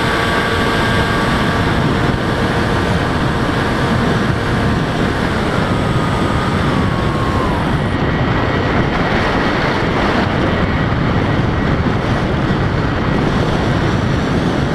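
Onboard audio of an HK Bixler 3 electric RC plane in flight: steady wind rush over the microphone under the whine of its brushless motor and pusher propeller. The whine steps down in pitch and fades out between about five and eight seconds in, as the motor is throttled back for the landing approach, leaving the wind rush.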